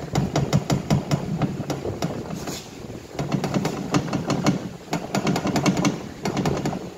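Fast metallic clicking and clatter over a low hum, in two spells of about two and three seconds with a short break between. It comes as a John Deere 5045 front axle's new crown and pinion gears are turned by hand through the pinion flange.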